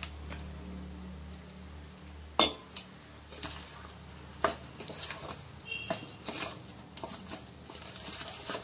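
Steel spoon scraping and knocking against a steel bowl as a little milk is stirred into thick semolina cake batter, with irregular sharp clinks, the loudest about two and a half seconds in. A steady low hum runs underneath.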